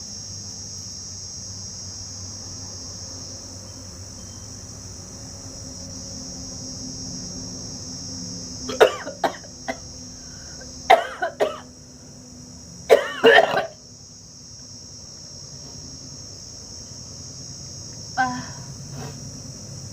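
A woman coughing in short throaty fits while she strains to hold back burps from fizzy drinks: one fit about nine seconds in, two more about two seconds apart after it, and a fainter one near the end. Crickets chirp steadily behind.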